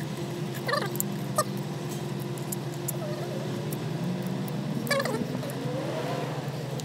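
Light metallic clicks and taps as steel injector fuel pipes and their fittings are handled and fitted on a diesel engine's fuel injection pump, over a steady low hum. Short high squeaky chirps sound about a second in and again near five seconds.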